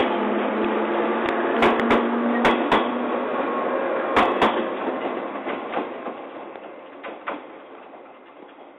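JR 415 series electric train pulling away from the platform: the wheels clack over the rail joints in quick pairs under a steady running hum. The sound fades away over the last few seconds as the train recedes.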